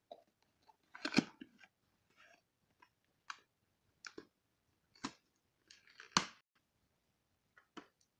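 A cardboard shipping box being opened by hand: packing tape tearing and the cardboard crackling in short, irregular bursts, loudest about a second in and again near six seconds.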